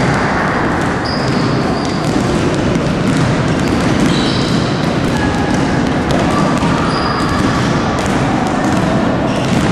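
Many basketballs bouncing on a wooden gym floor at once, a dense, steady clatter of overlapping thuds, with short high squeaks of sneakers on the floor now and then.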